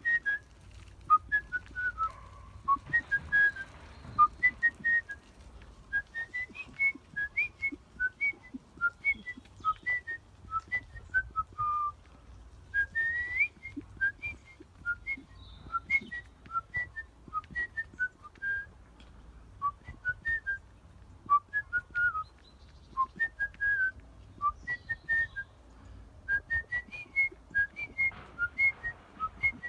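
A person whistling a melody solo, in quick, short, separate notes that hop up and down, with an occasional upward slide.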